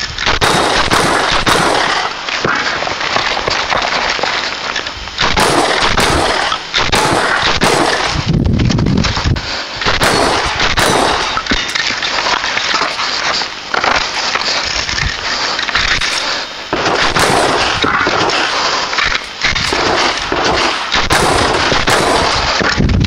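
Shotgun fired repeatedly, heard close up from the shooter's position, in quick strings of several shots with short breaks between the strings.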